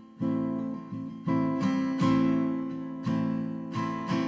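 Acoustic guitar strumming chords, a new strum about every second, with the notes ringing on between strums.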